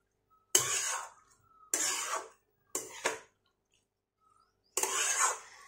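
Metal spatula scraping and stirring chopped banana stem in a steel kadai: four short scrapes with brief pauses between them.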